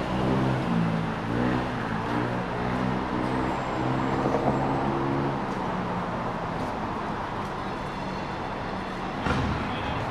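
Road traffic: a motor vehicle's engine running with a steady pitch, fading out about halfway through, over general traffic noise. A short sharp knock comes near the end.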